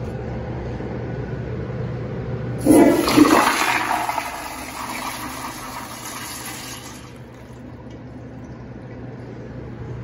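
Toilet flushing with mineral oil in place of water, driven by a Sloan Dolphin flushometer. A sudden loud rush starts about two and a half seconds in and runs strongest for a second or so, then carries on more quietly as the oil swirls down and tapers off about seven seconds in.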